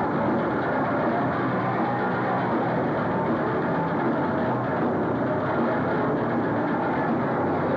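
A rock band playing live and loud, with electric bass among the instruments, in a dense, unbroken wall of sound with little treble.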